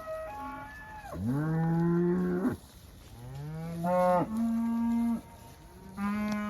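Cattle in a moving herd mooing: a fainter, higher call at the start, then three loud, long moos one after another.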